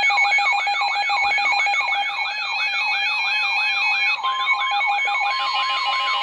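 Emergency Alert System warning tones: a whooping tone falling in pitch about three times a second over steady electronic alert tones, with another steady tone joining about four seconds in.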